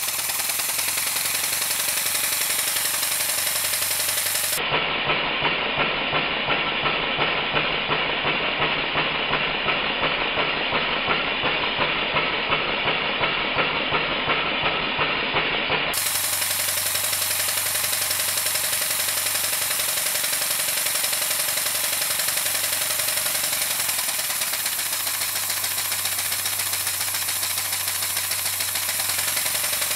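Small single-cylinder model steam engine running on compressed air, its exhaust hissing with a quick, even rhythmic beat as the air blows the water out of it. It stands on two pads of Scotch-Brite, which keeps it quieter.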